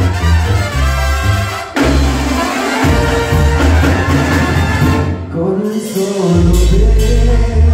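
Live Mexican banda music: trumpets and trombones play over a pulsing sousaphone bass line and drums.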